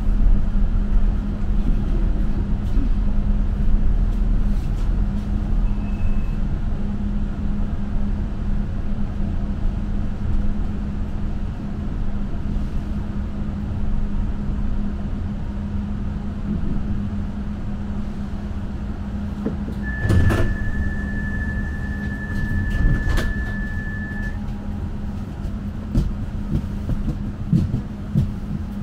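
Inside a tram: steady running rumble and motor hum, louder in the first few seconds and then easing off. About twenty seconds in, a steady high door-warning beep sounds for about four seconds, with a knock as it starts and another near its end.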